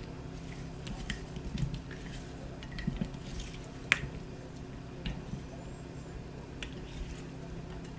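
Thin oiled raw potato slices being tossed and coated in a bowl: soft squishing and light clicks, with one sharper click about four seconds in, over a steady low hum.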